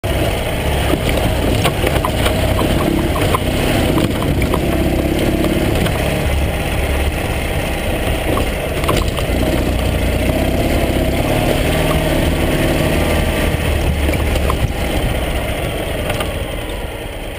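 Ural sidecar motorcycle's flat-twin engine running as the rig drives along a rough dirt trail, with scattered knocks and rattles over the first few seconds. The sound eases off near the end as the rig slows.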